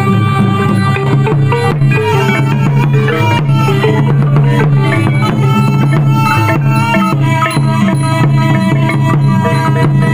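Khmer pinpeat ensemble music: steady hand-drum strokes under a busy melody of pitched instruments.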